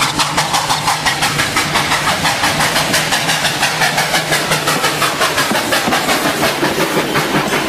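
Steam locomotive working hard out of a tunnel, exhaust chuffing rapidly at about six beats a second.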